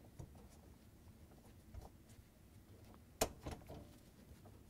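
Plastic end cap being fitted into the end of a dishwasher's upper-rack rail: faint plastic handling noises, with one sharp click a little over three seconds in and a few small ticks after it.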